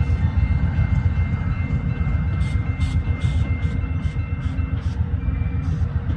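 A train passing with a heavy low rumble and a few faint steady high tones over it. From about two seconds in, a run of sharp clicks comes about three a second.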